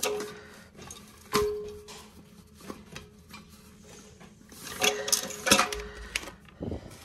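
Knocks and clinks of tank bolts and a hand against a porcelain toilet tank as the bolts are pushed down through their holes. There is a sharp knock about a second and a half in and a cluster of clinks around five seconds in.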